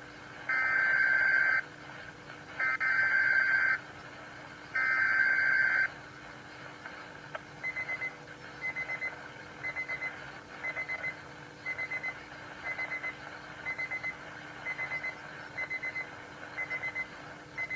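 Three one-second bursts of the warbling two-tone digital SAME header that encodes a Weatheradio Canada severe weather alert. A few seconds later the weather radio's alarm starts beeping in quick groups of about four, roughly once a second.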